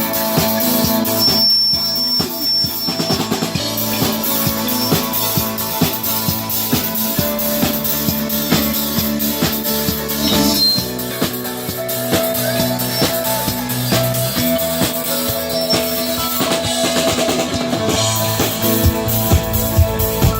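Music played on a drum kit, with steady kick and snare hits over held instrument notes. Heavier bass-drum hits come in near the end.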